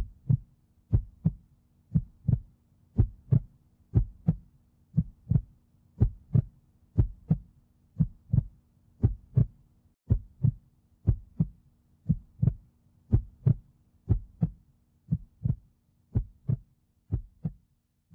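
Slow heartbeat-like rhythm: pairs of dull low thumps, about one pair a second, over a faint steady hum. The beats grow fainter near the end.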